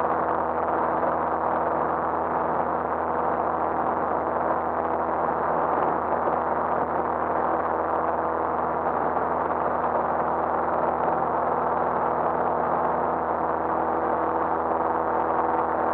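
Single-engine light aircraft's piston engine and propeller running at a steady pitch during the climb just after takeoff, a constant drone heard inside the cabin.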